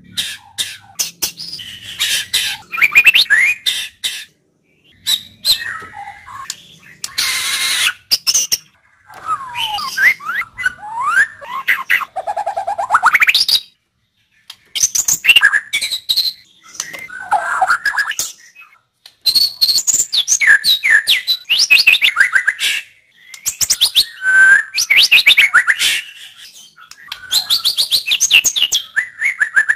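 White-rumped shama (murai batu) singing loud, varied phrases: clear whistles, sliding notes, sharp clicks and a rapid rattling trill, with short pauses between phrases.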